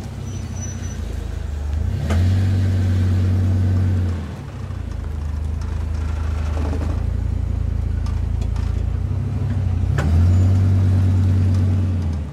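Ford Super Duty's V-10 engine running through a Flowmaster Hushpower muffler and new Y-pipe while driving, a steady deep exhaust note. Twice, about two seconds in and again about ten seconds in, it gets louder under heavier throttle for about two seconds, then drops back.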